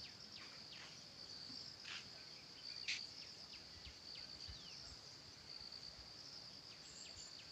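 Steady high-pitched trilling of insects, with short high chirps scattered over it and one sharper, louder chirp about three seconds in.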